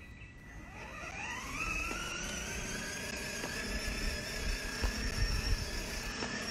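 Electric drive motors and gearbox of a child's battery-powered ride-on toy car whining. The whine rises in pitch over the first two seconds as the car speeds up, then holds steady.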